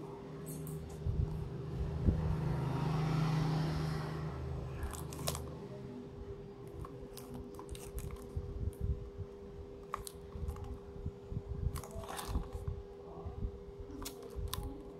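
Small shrink-wrapped cardboard box handled and turned in the hands: scattered crinkles and clicks of the plastic film. A steady low hum runs underneath, and a low rumble swells and fades during the first five seconds.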